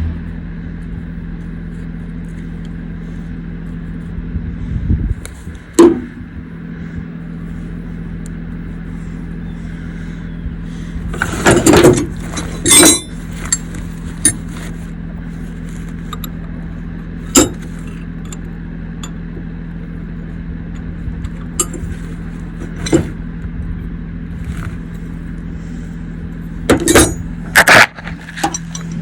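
A vehicle's steady engine and road drone, heard from inside the cab while driving, with occasional sharp clinks and rattles of loose items.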